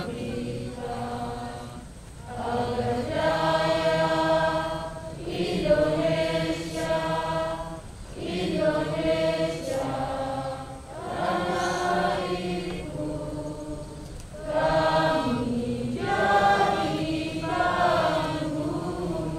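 A large group of voices singing a song together in unison, in held phrases of about three seconds with short breaths between them.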